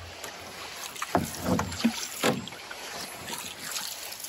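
Wooden canoe paddles stroking through lake water, with a cluster of about four short splashy dips and swirls between one and two and a half seconds in, over a steady background hiss.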